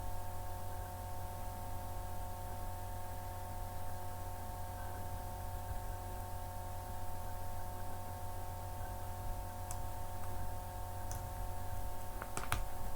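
Steady electrical hum with several steady tones, with a few faint mouse clicks near the end.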